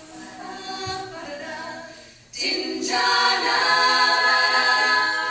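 Female a cappella group singing in close vocal harmony. The sound drops briefly just before two seconds in, then the voices come back louder and fuller.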